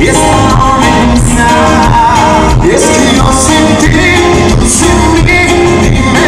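Loud live band music with a singer over a steady drum and bass beat.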